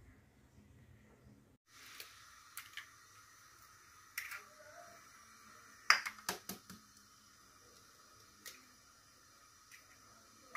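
Eggs being cracked against a bowl and the shells put down in a small ceramic dish: a few sharp clicks and taps, the loudest about six seconds in followed by several quick taps, over a faint steady hiss.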